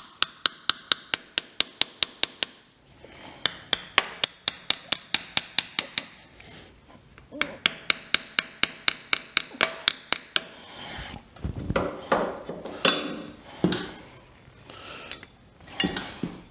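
Quick, even hammer taps, about five a second in three runs, driving an O-ring-sealed block heater into the casting of a Kubota D722 diesel engine block. From about two-thirds of the way through, irregular scraping and knocking take over as the heater is pushed and worked into its snug bore.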